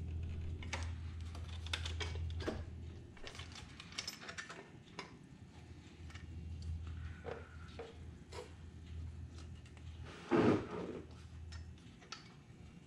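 Quiet, scattered clicks and taps of hands handling and shifting the L98 engine's cast-aluminium upper intake plenum as it is lined up on its runners and gaskets. A brief louder noise comes about ten and a half seconds in.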